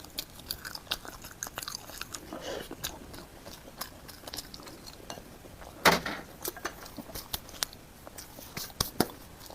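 Close-miked chewing and biting: wet mouth clicks and smacks from a person eating glutinous rice sausage, with one louder smack about six seconds in.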